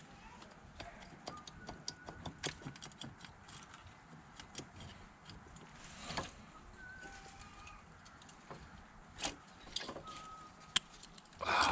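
Scattered light metallic clicks and taps as a motorcycle cylinder head is worked loose and lifted off its cylinder once the head studs are out, with one sharper click near the end.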